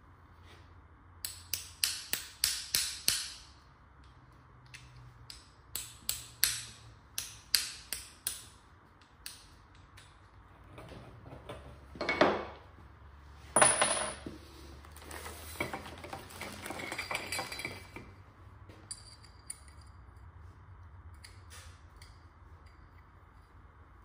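Hand work on a drone's arm lock mechanism: two runs of quick clicks as small plastic and metal parts are worked loose, a scrape, then a sharp metallic clink about halfway through followed by a few seconds of rattling parts.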